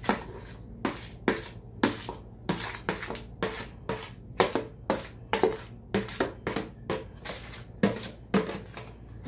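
A utensil knocking and scraping against a bowl as seafood filling is scooped out into a foil parcel: a string of short sharp clicks and knocks, roughly two a second.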